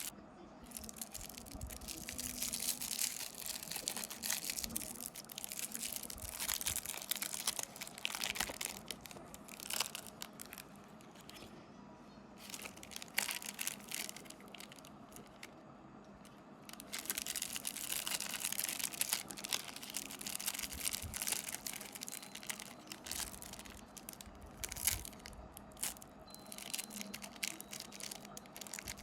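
Candy packaging being handled and opened: plastic and paper wrappers crinkling and tearing in irregular bursts, with a couple of quieter pauses along the way.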